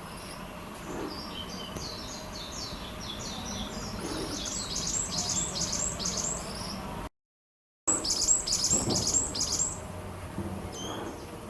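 Varied tit giving quick runs of high, rapidly repeated chirping notes that grow louder and denser toward the middle. The sound cuts out completely for under a second about two-thirds of the way through, then the chirping resumes and thins to a few single notes near the end.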